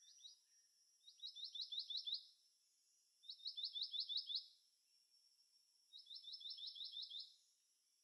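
Black-naped monarch singing: three short series of about six or seven quick 'wi-wi-wi' notes, each note falling in pitch and each series lasting about a second.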